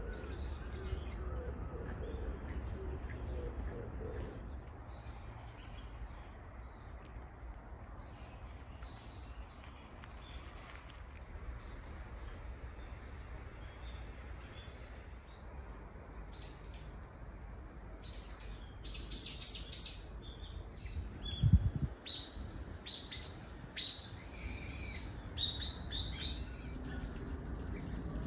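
Wild birds calling in woodland: faint high chirps at first, then a burst of short, bright, high calls from about two-thirds of the way in. A single thump comes shortly after the calls start, over a low steady rumble.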